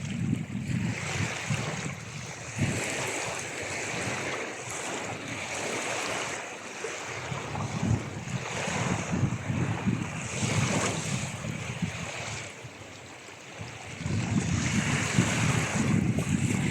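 Ocean waves washing on a shore, swelling and ebbing every few seconds, with a quieter lull a little before the end and a louder surge after it.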